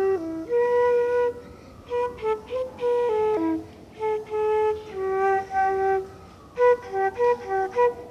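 A child playing a melody on a silver transverse flute with a curved headjoint: one clear melodic line of short separate notes and longer held notes, in short phrases with brief pauses between them.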